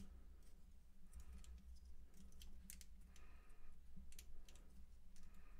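Faint, scattered clicks of small hard-plastic toy parts being twisted and snapped into place by hand.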